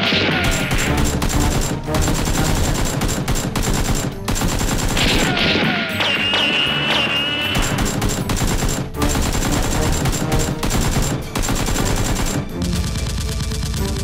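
Rapid machine-gun fire sound effects: continuous dense bursts of shots laid over the action, rather than the soft pops of real foam-dart blasters. A high wavering tone joins in about five seconds in and stops about two and a half seconds later.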